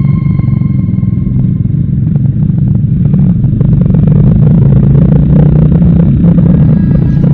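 Vehicle engine and road rumble heard from inside a moving car: a loud, steady low drone with some rattling.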